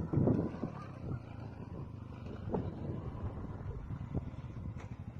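Low rumble of a motor vehicle's engine running, with a few light knocks.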